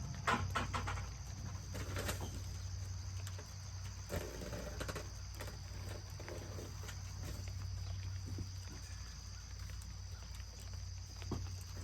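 Faint farm-animal calls, a few short pitched calls about four seconds in, over a steady low hum with scattered light clicks.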